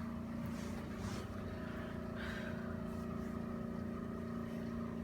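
A small electric motor running with a steady, even hum.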